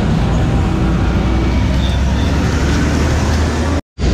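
Highway traffic noise with a steady low engine rumble from heavy vehicles such as buses. The sound drops out for an instant near the end.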